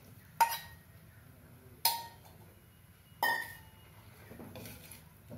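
Steel ladle and vessel clinking against a stainless-steel pan three times, about a second and a half apart, each clink ringing briefly, as cooked dal is tipped into the sambar. A softer stirring sound follows near the end.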